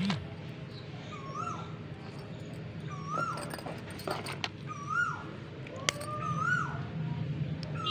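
Repeated short whining calls from an animal, about one every second and a half, each rising then falling in pitch, over a steady low hum. A few sharp clicks come from dry multani mitti (fuller's earth) chunks knocking together as they are handled.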